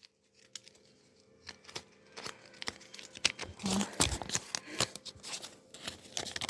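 Crinkling and tearing of thin plastic wrapping from a Kinder Surprise toy being unwrapped by hand: a dense run of quick crackles and clicks that starts about two seconds in.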